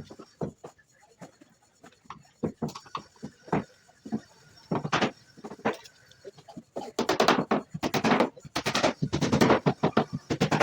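Irregular sharp knocks and taps of tools striking wood. About seven seconds in they turn into a fast, dense run of strikes that are louder than the earlier taps.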